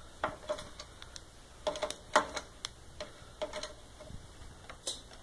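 Light metallic clicks and clinks of a socket wrench and extension worked at a motorcycle's fork triple-clamp bolts. They come in small irregular clusters, several with a brief ring.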